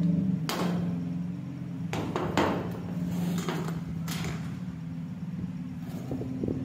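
Knocks and clatter from the rusty metal parts of a two-handled manual animal hair clipper as it is handled and set down on a concrete floor. There are several separate knocks, with a louder cluster about two seconds in, over a steady low hum.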